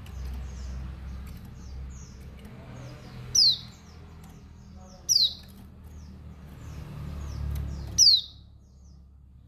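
Female pleci (dakbal white-eye) calling: three loud, sharp, downward-sliding chirps about 3.5, 5 and 8 seconds in, with fainter quick high chirps between them. It is the female's call that sets male white-eyes off. A low steady rumble runs underneath.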